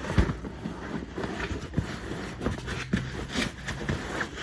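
Handling noise of a dog car seat being assembled: the fabric cover rustling while a stiff insert is pulled up into it, with scattered scrapes and short knocks, the sharpest about a quarter second in.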